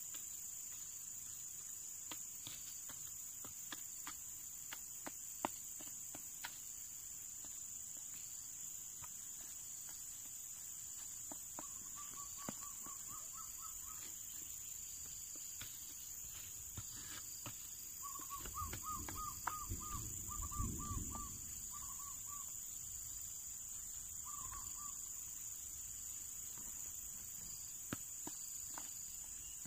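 Steady high drone of insects, with scattered clicks and scrapes of a wooden stick pushing soil over seed holes. A bird gives runs of short repeated chirps a little before the middle and again past it, along with a brief low rumble.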